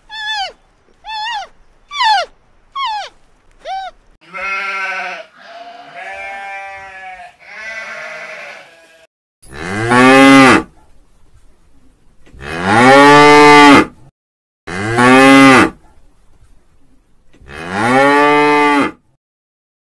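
A cat meowing in about five short, falling calls. Then three wavering sheep bleats. Then four long, loud cow moos, each rising and then falling, the loudest sounds here.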